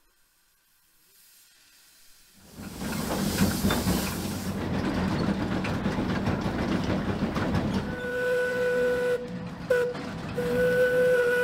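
Lombard steam log hauler: a loud rush of hissing steam starts about two and a half seconds in, and about eight seconds in its steam whistle sounds a steady tone over the hiss, cut off twice and then held again.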